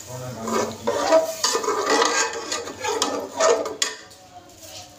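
Metal spatula stirring and scraping in an aluminium pot of spiced masala and water, with irregular clinks against the pot; quieter near the end.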